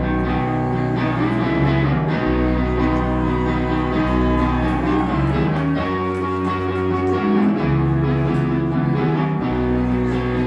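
Rock band playing live, electric guitars and bass guitar held in long sustained notes over a bass line that changes note every second or two.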